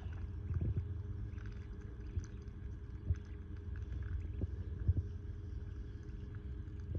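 Ducklings paddling and dabbling in a shallow muddy stream: a few soft knocks and faint ticks over a steady low rumble.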